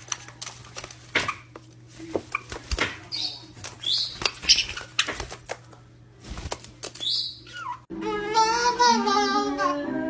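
Caiques calling in short high squawks, with wing flapping and claws tapping on a hard floor over a steady low hum. About eight seconds in, the sound cuts to music with singing.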